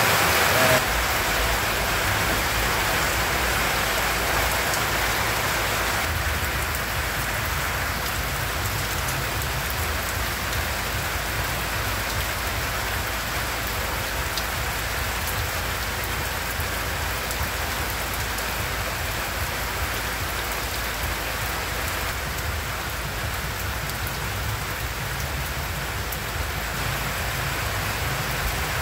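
Steady rain falling on a corrugated tin roof overhead and on the yard around it, a continuous even patter.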